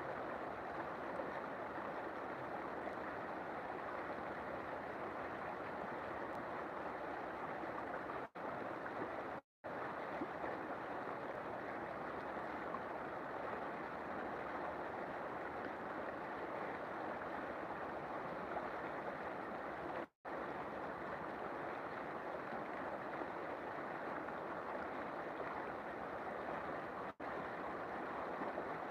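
River water flowing and rushing in a steady, even wash of sound, cut by a few brief dropouts to silence.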